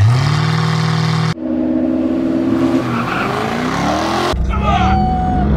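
Jaguar F-Type SVR's supercharged V8 revving up and held at high revs on the start line. It then cuts to both it and a Nissan GT-R launching, engines rising in pitch, with a short tyre squeal about five seconds in.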